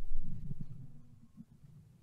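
Low rumbling tail of a heavy foley thump, fading away within about the first second, then near silence.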